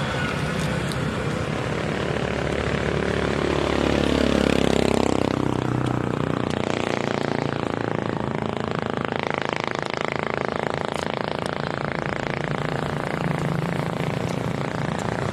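Steady traffic noise, with one vehicle passing close about four to five seconds in, its sound rising and then fading away.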